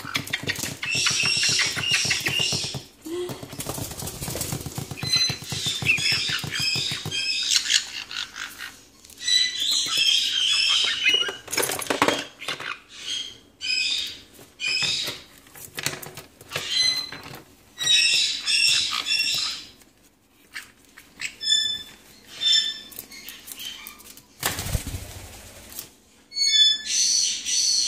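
Baby white-bellied caiques chirping in repeated bursts of short, high squeaky calls, among clicks and clatter of plastic bird toys. A dull thud comes near the end.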